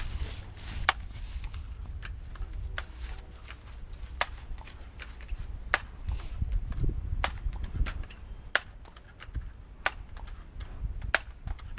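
Multi-pump .177 calibre pellet air rifle being pumped up: a sharp clack at each stroke of the pump lever, about one every second and a half, eight or so strokes, with low handling noise between them.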